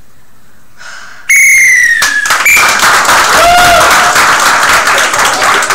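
Referee's whistle blown once in a short, loud blast a little over a second in, ending the improvisation. The audience then breaks into applause and cheering.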